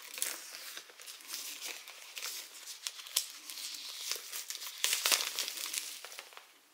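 Clear plastic shrink-wrap crinkling and tearing as it is peeled by hand off a cardboard tarot deck box, an irregular crackle with a louder burst about five seconds in.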